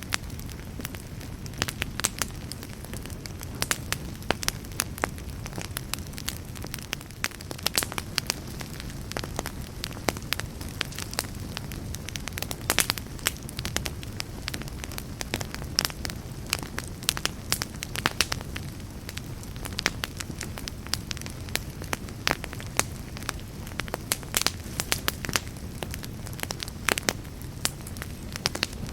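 Wood fire crackling in a fireplace: a steady low rumble of flames with frequent sharp pops and snaps.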